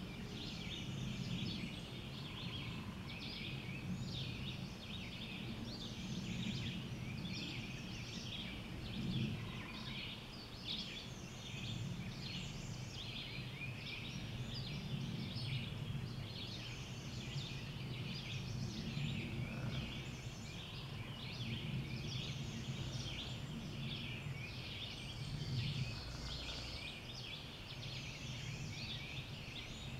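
Dawn chorus of many songbirds singing at once: a dense, unbroken tangle of overlapping high chirps and trills, over a steady low rumble.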